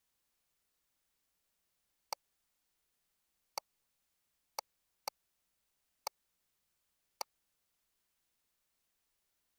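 Six short, sharp clicks, unevenly spaced, with near silence between them.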